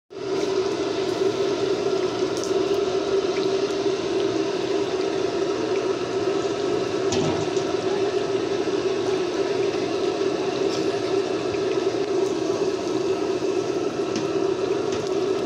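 Bread pakoras deep-frying in a large kadai of hot oil: a steady sizzle with a few sharp pops.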